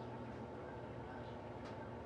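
Electrolux LED14 washing machine running steadily in its intermediate spin.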